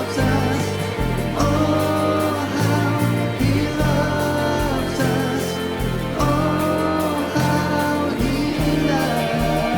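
A Christian worship song: a singing voice over a band, with held bass notes and sustained chords.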